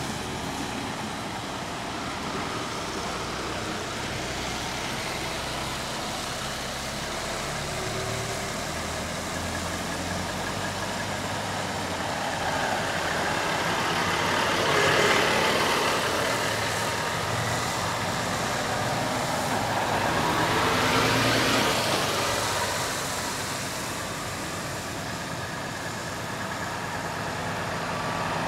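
Trucks driving past one after another, engines running over a steady traffic noise. Two pass close and swell louder, about halfway through and again about three quarters of the way through.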